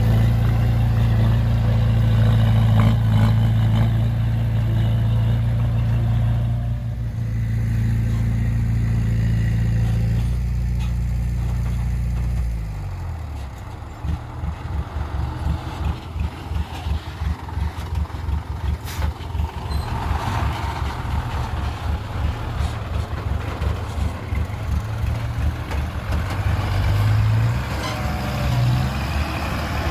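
Heavy vehicle's diesel engine running steadily at raised revs, then dropping to a slow, pulsing idle about twelve seconds in.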